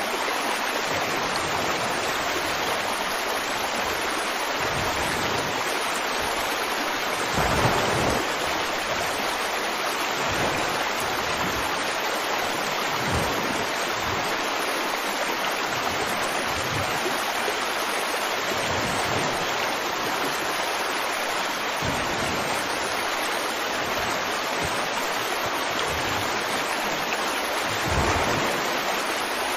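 A steady rushing noise, like running water or surf, with two brief louder swells: one about eight seconds in and one near the end.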